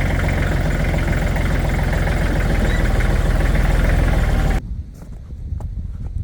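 Farm tractor engine idling steadily with a low drone, stopping abruptly about four and a half seconds in. After that come wind noise and a few faint knocks.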